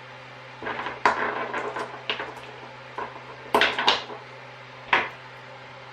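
Small hard parts of rebuilt RC shock absorbers clicking and clattering as they are handled and set down. Several quick clusters of clicks, the loudest a little past halfway, and a last single click near the end, over a steady low hum.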